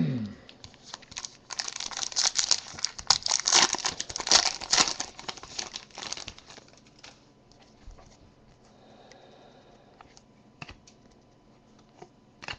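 Foil trading-card pack wrapper crinkling and being torn open. The crackling is loudest for a few seconds about a second and a half in, then gives way to a few quiet clicks of cards being handled.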